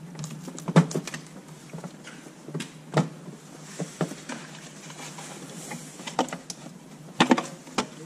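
Scattered plastic clicks and knocks of electrical connectors being unplugged and intake parts being handled in a car's engine bay, the loudest about a second in, at three seconds and near the end, over a steady low hum.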